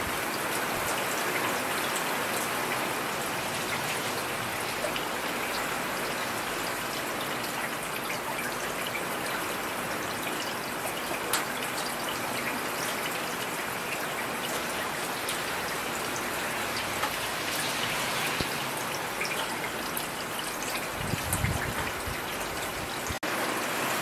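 Heavy rain falling steadily: a dense, even hiss with scattered taps of single drops. There is a brief low rumble about three seconds before the end.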